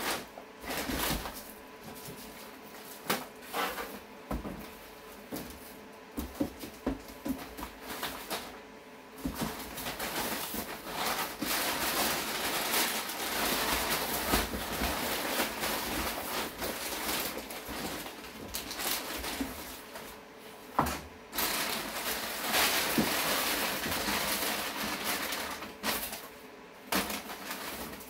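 Packing paper and plastic wrap rustling and crinkling as a computer case and its packing are pulled out of a cardboard box, with scattered knocks of cardboard and the case against the box and table.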